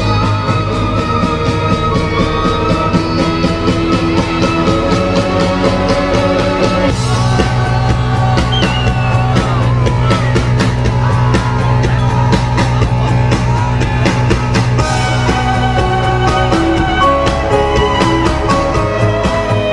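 Solo violin playing a melody with vibrato over a pop-rock backing track with a steady drum beat and bass.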